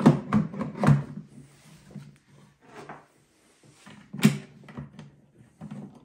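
Plastic knocks and clunks as a bolt-on wheel bracket is pushed against and slotted onto the base of an EcoFlow Glacier portable fridge-freezer's housing: a few quick knocks at the start and a sharper single clunk about four seconds in.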